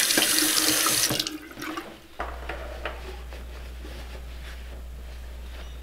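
Bathroom sink faucet running water into the basin, shut off and dying away about a second in. After that, faint scattered rustles of hands being dried on a hanging cloth towel.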